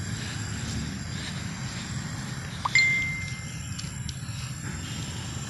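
A single high, clear ding a little under halfway through, ringing out and fading over about a second, over a steady low outdoor rumble.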